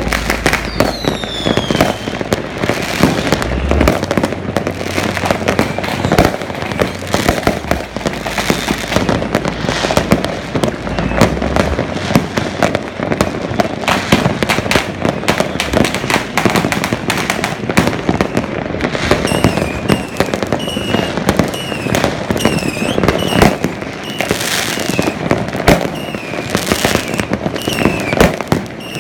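Many fireworks and firecrackers going off across a city at once: a dense, continuous crackle of bangs and pops. Short high whistles falling in pitch cut through, a couple near the start and many in the last third.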